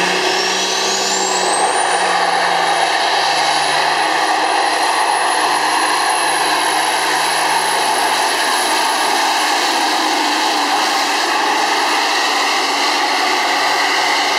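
Pulling semi truck's diesel engine at full throttle, dragging a weight-transfer sled. A high turbo whine climbs over the first two seconds, then holds high and steady over the engine's steady din.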